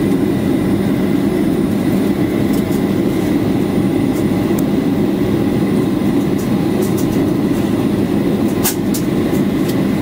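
Steady cabin roar inside a Boeing 737-800 in flight: engine and airflow noise heard from a passenger seat, with a few faint clicks.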